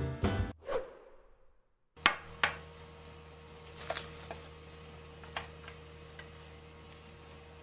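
Background music ends, and after about a second of silence come a few sharp clicks and knocks as a stainless mesh strainer resting in a glass measuring cup is handled. Plastic cling wrap crinkles as it is peeled off, over a steady faint hum.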